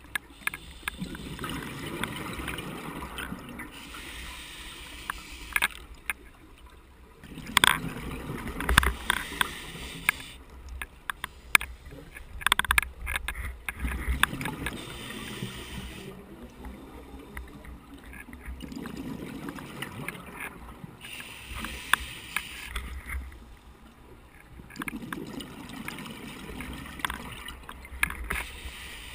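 Scuba diver breathing through a regulator underwater: a hissing inhale alternating with a rumbling bubbly exhale, about one breath every six seconds. Sharp clicks of the camera rattling recur throughout.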